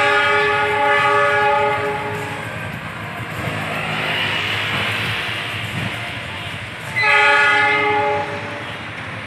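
Diesel locomotive's multi-tone horn sounding two blasts: one lasting about two seconds at the start and a shorter one about seven seconds in. Between them the train's rumbling running noise rises and fades.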